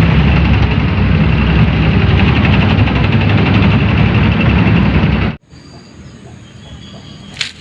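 Sound effect of a tank: a loud heavy-engine rumble with a fast rattle of tracks, cutting off abruptly about five seconds in. A quieter stretch follows, with a click near the end.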